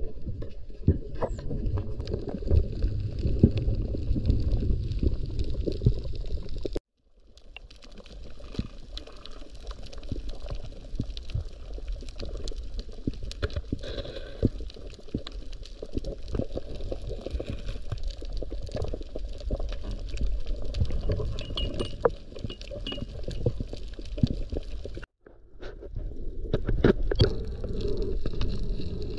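Underwater sound picked up by a camera on a reef dive: a low rumble of moving water with many small clicks. It drops out suddenly twice, about a quarter of the way in and again near the end.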